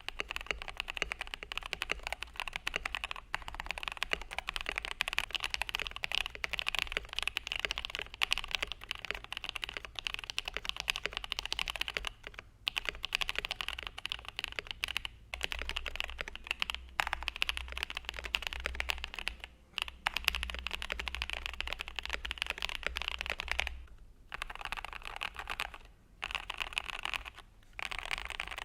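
Continuous fast typing on a mechanical keyboard fitted with GMK-style keycaps, a dense run of keystroke clacks broken by a few short pauses, as a keycap sound test.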